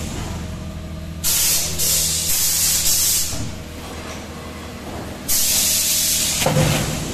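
Nursery tray forming machine running with a steady hum, broken by two bursts of compressed-air hiss of about two seconds each, one starting about a second in and the other about five seconds in. A short thump comes as the second burst ends.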